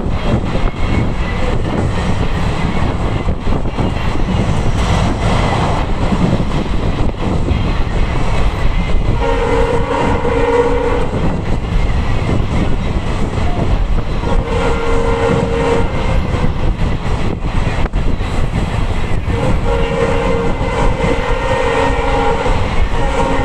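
EMD diesel locomotive hauling a train at speed: a steady, loud rumble of engine and wheels. From about nine seconds in, the locomotive's horn sounds in four long blasts.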